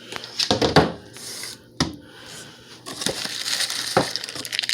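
Cardboard box and packing being handled: a few sharp knocks and scrapes, then steady rustling from about three seconds in.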